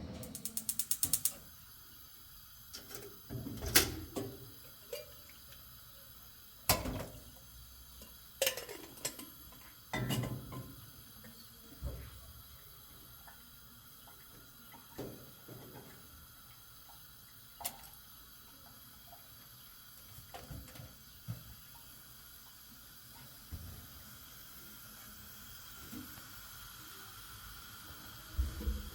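Scattered knocks and clatter of things being handled, opening with a quick run of clicks.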